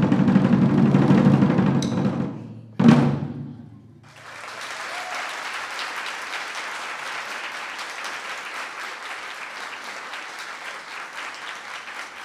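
A pair of Chinese barrel drums (tanggu) struck with sticks in a fast, dense roll that fades away about two seconds in, then one last loud stroke that rings out briefly. About a second later audience applause starts and carries on steadily.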